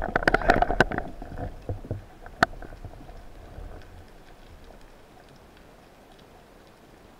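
Underwater clatter: a dense flurry of sharp clicks and knocks that fades over the first two seconds, one more sharp click a little later, then a faint steady underwater hiss.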